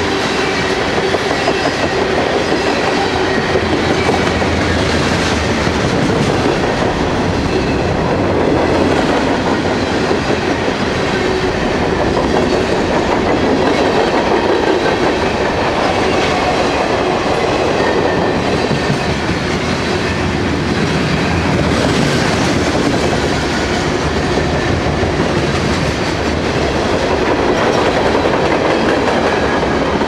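Freight train cars rolling past close by, tank cars giving way to covered hoppers, their wheels clacking steadily over the rails. The noise is loud and even throughout.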